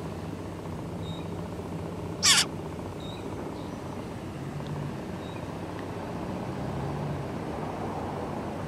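A nestling songbird gives one short, shrill begging squawk about two seconds in, over a steady low hum.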